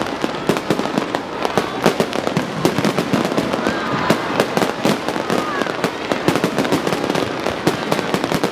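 Fireworks going off: many sharp bangs and crackling pops in quick, irregular succession.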